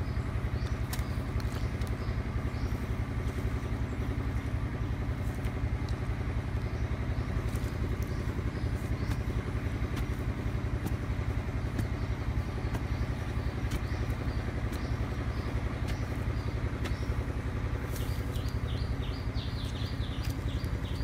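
A small engine running steadily with an even low throb. Near the end, a bird chirps rapidly over it.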